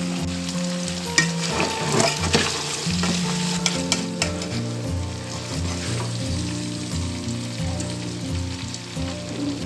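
Pork mesentery sizzling and frying in its own rendered lard in an aluminium pot, with a metal ladle scraping and stirring through it. The broth has cooked off and the fat has rendered out. Background music with a steady beat plays underneath.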